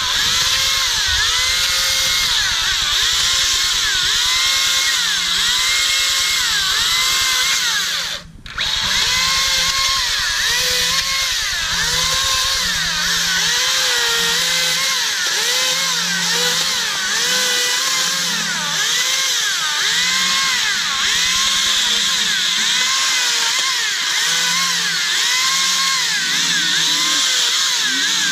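Makita DUC353 cordless brushless 36-volt electric chainsaw cutting through a branch, its motor whine dipping in pitch under load and recovering again and again. It stops for a moment about eight seconds in, then starts again.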